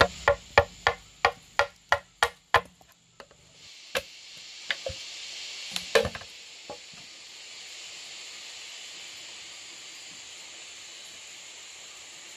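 A machete blade chops and shaves the rim of a bamboo cup in quick, even strokes, about three a second, that stop about three seconds in. After that there is a steady high hiss, with a few light knocks around four to six seconds in as the machete and bamboo are set down.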